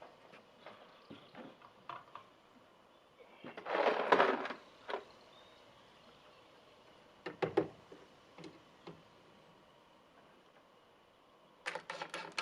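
Mostly quiet, with scattered light knocks and clicks, a brief rustling scrape about four seconds in, and a couple of sharper knocks a little past halfway.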